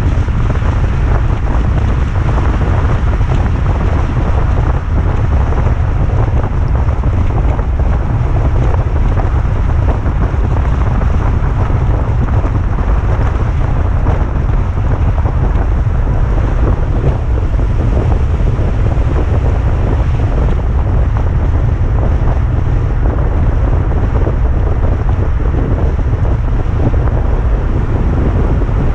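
Steady wind buffeting the microphone: a loud, unbroken low rumble over a constant rushing hiss, with no separate events.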